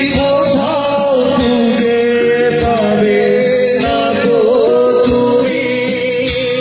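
Live Bengali song accompaniment playing an instrumental passage between sung lines: a wavering melody line over regular drum beats.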